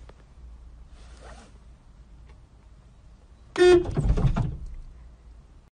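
A car horn sounds once, a short loud blast about three and a half seconds in, followed by about a second of loud noisy thumping, over a low steady hum.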